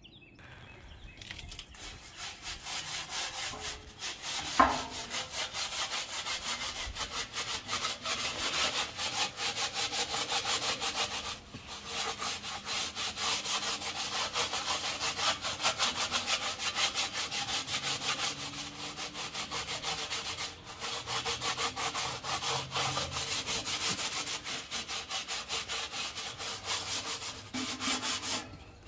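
Gloved hand scrubbing the soapy steel inside a new Old Country Wrangler offset smoker's firebox in fast, rhythmic strokes, scouring off the factory rust-preventive grease. The scrubbing stops briefly three times, and a sharp knock sounds about four and a half seconds in.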